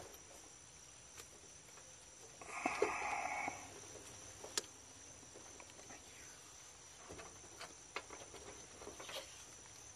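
Black electrical tape being pulled off the roll and wrapped around an HVAC fan capacitor: one rasping pull of tape lasting about a second, starting about two and a half seconds in, then small clicks and handling noises. A faint, steady high insect buzz runs underneath.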